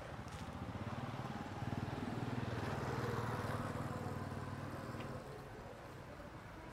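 A motor vehicle's engine passing by: it grows louder, peaks in the middle, and fades away about five seconds in.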